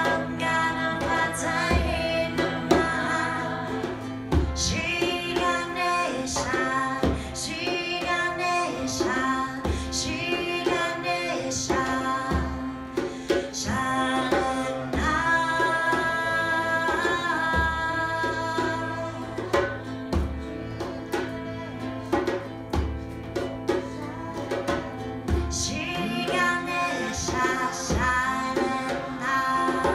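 A woman singing a melody with ukulele, backed by a harmonium holding a steady drone and low frame-drum beats every couple of seconds.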